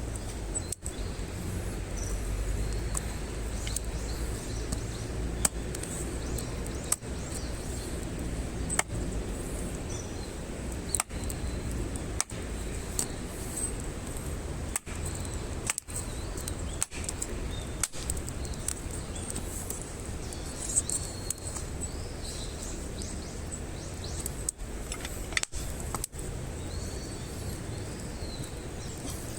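Wood campfire burning, with scattered sharp crackles and pops over a steady low hiss and rumble.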